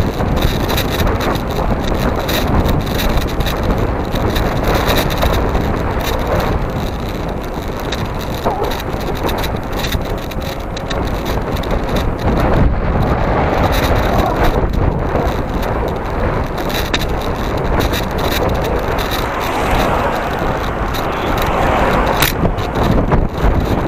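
Steady wind rush on the microphone with road rumble from a camera moving along a freshly paved asphalt road. A car passes close by near the end.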